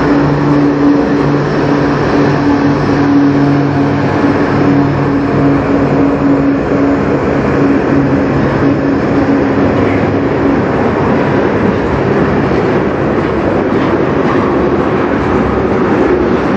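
A CN diesel locomotive running as a mid-train distributed power unit passes with a steady engine drone that fades about ten seconds in. After that comes the even rumble of loaded tank cars rolling by on the rails.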